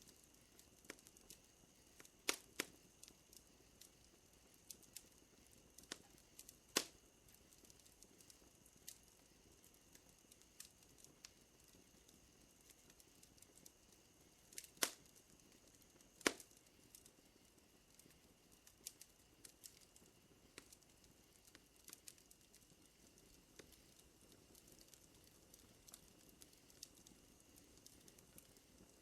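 Wood fire crackling, with scattered small pops and a few louder sharp snaps, over a faint steady high-pitched drone of night ambience.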